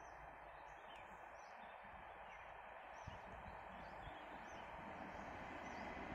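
Small birds chirping over and over, with a faint rumble underneath that grows a little louder toward the end from a train approaching in the distance.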